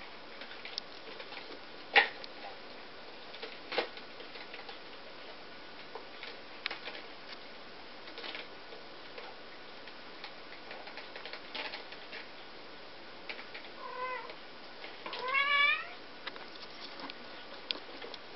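Ragdoll kittens playing: scattered knocks and clicks, the loudest a sharp knock about two seconds in. Near the end a kitten meows twice, a short meow, then a longer, louder rising one.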